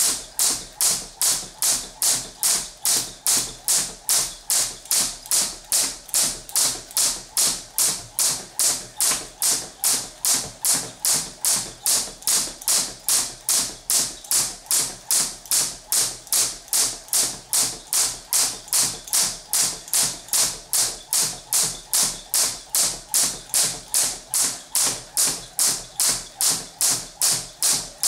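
Crossrope jump rope slapping the floor on each turn in a steady, even rhythm of about two to three sharp taps a second.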